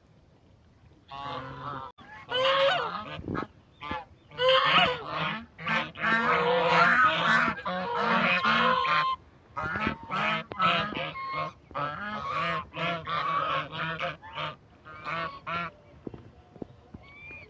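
A flock of white domestic geese honking, many calls overlapping one another. The calls begin about a second in, are loudest through the middle and thin out near the end.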